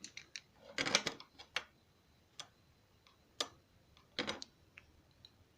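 Scattered light clicks and taps, some single and a few in quick little clusters, coming at irregular intervals.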